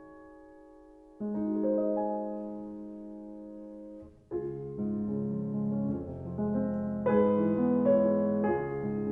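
Piano music: a held chord fading away, a new chord struck about a second in, then a fuller passage with low bass notes from about four seconds in.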